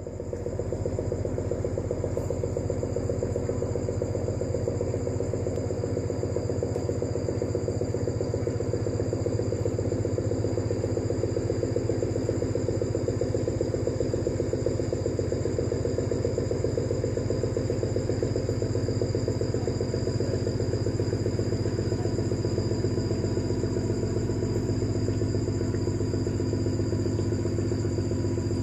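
A steady, even drone with a low pitched hum, like an engine or motor running, under two steady high-pitched tones.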